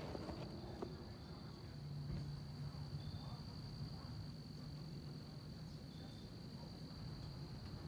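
Crickets trilling steadily in the background, one continuous high-pitched note. A faint low hum joins for a couple of seconds near the start.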